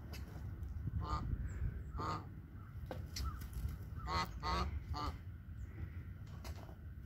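Pygmy goat kids bleating: about five short, wavering calls, two close together near the middle.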